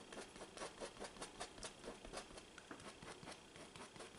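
Paintbrush bristles dabbing and scratching acrylic paint onto a canvas: faint quick taps, about five a second at first, thinning out and fading after about two seconds.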